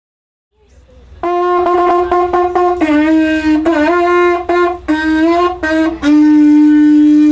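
A reedy wind instrument plays a short tune: a run of quick, separate notes, then a long held note near the end.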